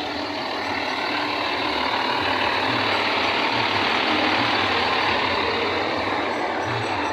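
Several bus basuri horn systems sounding together in a horn battle, a dense loud blare that swells to its loudest about halfway through and then eases slightly.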